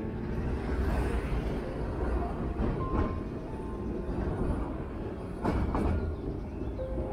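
Vintage Milan Class 1500 'Ventotto' tram running along its rails with a steady low rumble. There are clacks from the wheels over the track about three seconds in and again at around five and a half to six seconds.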